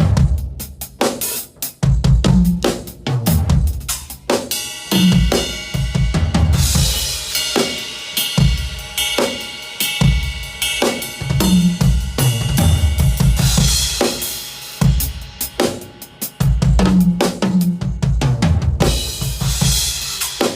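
Acoustic drum kit played loudly: kick drum, snare and hi-hat grooves with fills and stretches of ringing cymbal crashes.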